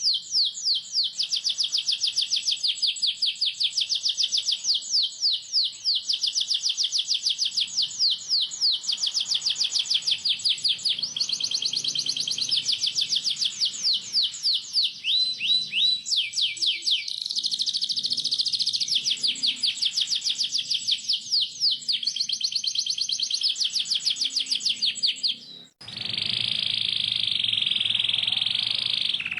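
Domestic canary singing a long rolling trill: a rapid, unbroken run of high chirps, each sweeping downward. Near the end it breaks off for a moment and resumes as a denser, more continuous warble.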